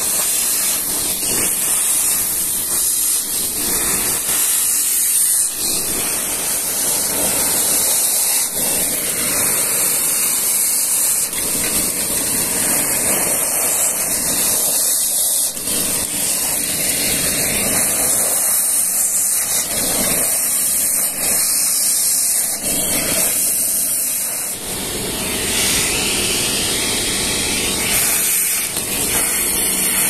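4000 W CFM 3507W industrial wet vacuum cleaner running, its hose nozzle sucking up water, grit and sludge: a loud, steady rushing hiss of air and liquid drawn into the hose, wavering slightly as the nozzle moves over the wet floor and into the drain channel.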